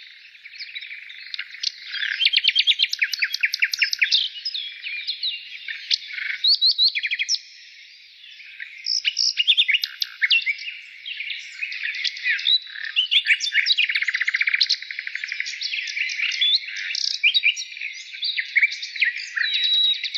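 A chorus of several songbirds chirping and singing over one another, with dense runs of short chirps and rapid trills. There is a brief lull about eight seconds in.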